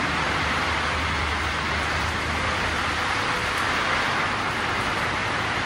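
Heavy rain heard from inside the shop, a steady loud hiss, with a faint low hum underneath.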